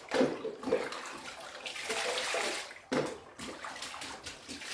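Ice water splashing and pouring in a chest-freezer cold plunge, as from a jug poured over the head, with a short break a little under three seconds in.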